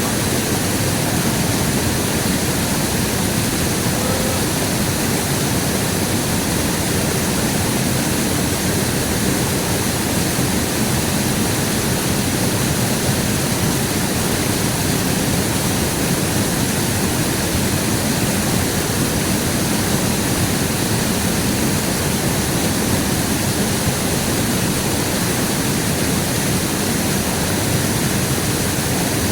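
River water rushing steadily, a loud, even noise with no breaks.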